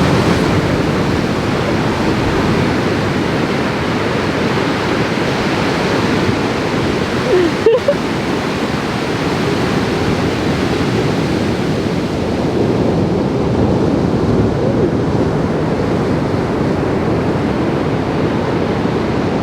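Loud, steady rushing outdoor noise with no speech, dipping briefly about eight seconds in.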